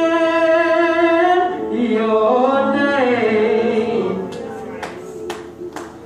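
A young male singer's solo voice, amplified through a handheld microphone, holding a long steady note and then sliding through a run of bending notes that fades out after about four seconds. A few sharp clicks near the end.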